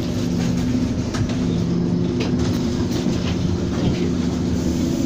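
Scania OmniCity double-decker bus engine idling steadily, heard from inside the lower deck, with a few light knocks and rattles.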